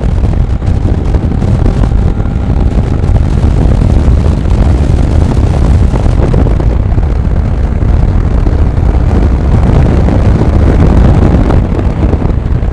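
Heavy wind buffeting on the microphone over a motorcycle running at speed, a steady low roar with no distinct engine note.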